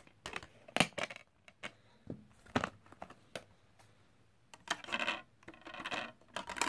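A few sharp plastic clicks as a game disc is pried off the hub of its case and handled, then scraping and rattling near the end as the disc is pushed into the open tape compartment of a portable cassette player.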